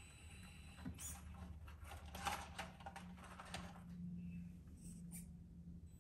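Faint clicks and scrapes of a small plastic RC crawler truck being handled and set back on a steep ramp, over a faint steady hum.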